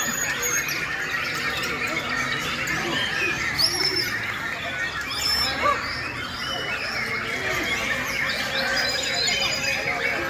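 Many caged white-rumped shamas singing and calling over one another: a dense, continuous tangle of overlapping whistles, rising and falling glides and harsh chatters.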